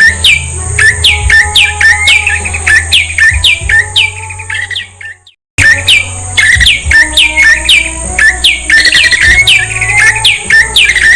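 Prenjak (prinia) call recording: loud, rapid, evenly repeated falling chirps, about three a second. The recording cuts out about five seconds in, then starts again with the same call.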